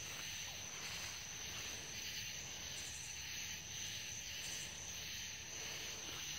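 Faint, steady chorus of night insects, crickets, holding one constant high pitch.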